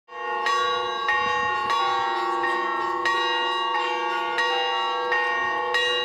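Church bells in the Syzran Kremlin's bell tower rung in a steady peal for Easter, with about nine strikes roughly every two-thirds of a second and several bell tones ringing on over one another.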